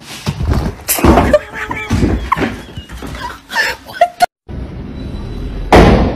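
A small dog scrambling around a room: a quick run of thumps and knocks, some against a door, mixed with short voice-like sounds. It breaks off suddenly, then a steady background hiss follows with one loud thump near the end.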